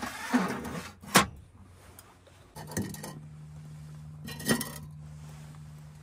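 Lit candles in glass jars knocking into the metal frame of a Vesta candle heater, with sharp knocks about a second in, then a metal pot clanking down onto the heater's wire grille with a brief ringing about four and a half seconds in. A steady low hum starts about two and a half seconds in.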